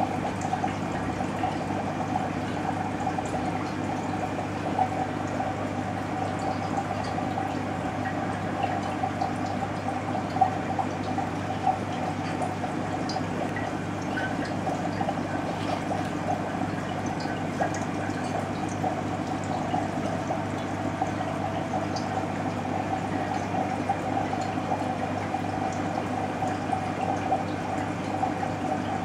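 Aquarium water bubbling and trickling steadily, from air rising through the tank's air-driven sponge filter, with small pops scattered throughout.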